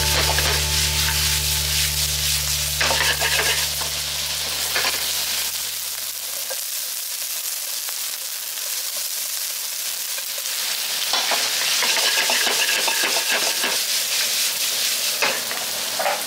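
Meat and vegetables sizzling as they are stir-fried in a wok, then noodles frying in a pan, with a few sharp knocks of the utensils against the pan. A low steady drone fades out about six seconds in.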